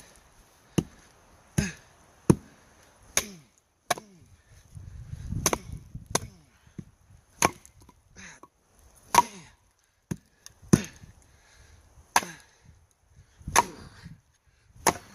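A wooden baton striking the spine of a Wallace Reaper knife, driving the blade down through a piece of pine: about a dozen sharp knocks, spaced roughly one to one and a half seconds apart.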